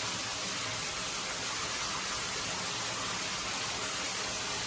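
Water running steadily in a bathroom, an even unbroken hiss with no change in level.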